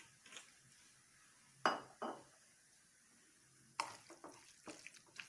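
A spoon clinking against a bowl a few times while a honey, olive oil and garlic mixture is stirred: two sharp clinks a little under two seconds in, another near four seconds, then a few lighter taps.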